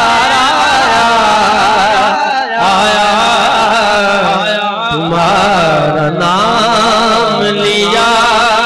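A man singing a naat, an Urdu devotional poem, in long wavering melismatic phrases broken by brief pauses for breath.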